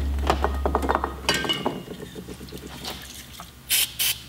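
Small metal parts clinking as they are handled, then a short hiss from an aerosol spray can near the end as the disassembled brake master cylinder is sprayed down.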